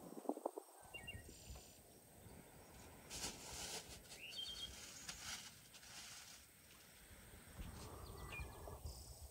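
Soft rustling and crinkling of aluminium foil and food being handled, with a few short bird chirps.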